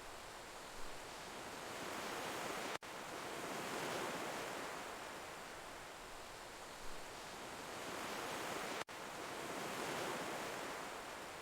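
Ocean surf: waves swelling and washing back in a slow cycle of about six seconds. The sound cuts out for an instant twice.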